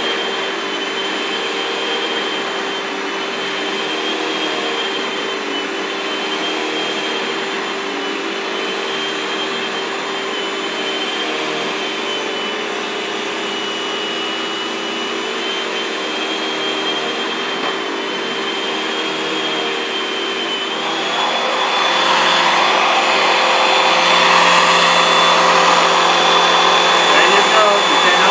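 6-gallon, 2.25-horsepower Shop-Vac wet/dry vacuum running with a Kenmore power nozzle: a steady motor whine over a rush of air as it is worked over a rug. About 21 seconds in it gets louder and the whine rises in pitch, and near the end the nozzle is tipped up off the rug.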